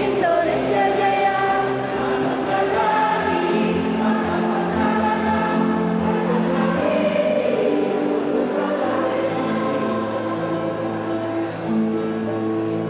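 A choir singing, holding long notes in several parts.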